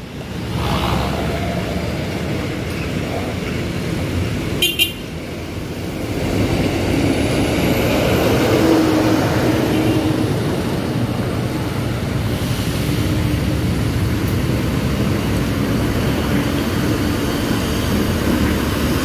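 A bus's engine running as it drives past, with a short horn toot about five seconds in; the engine noise grows louder from about six seconds in and stays up.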